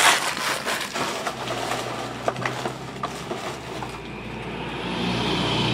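Foil trading-card pack wrappers crinkling and a few light clicks as they are handled, fading about a second in. A low steady hum follows and grows louder near the end.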